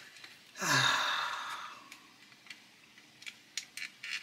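A man's long sigh about half a second in, a breathy out-breath lasting over a second, heard while a stiff plastic model part refuses to come out. It is followed by a few faint clicks of tweezers and small plastic parts being handled.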